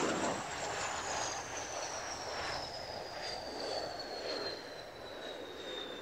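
Kawasaki T-4 jet trainer's twin turbofans passing low on landing, a broad roar that is loudest at the start, with a high whine falling steadily in pitch as the jet goes by and rolls out.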